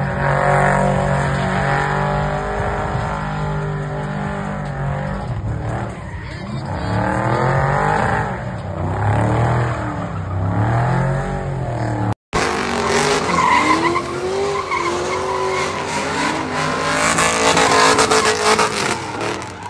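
Motor vehicle engine running, its pitch rising and falling. About twelve seconds in there is an abrupt cut to a different, noisier vehicle sound with a wavering squeal-like tone over hiss.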